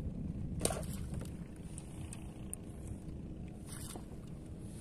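A steady low rumble, with two brief rustling noises: one about half a second in and one near the end.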